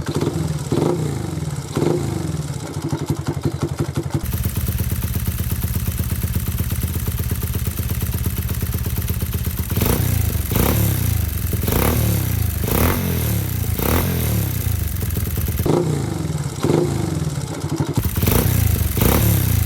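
Honda Monkey's 88 cc single-cylinder four-stroke engine running through a long aftermarket muffler, revved in repeated short throttle blips, about one a second in the second half.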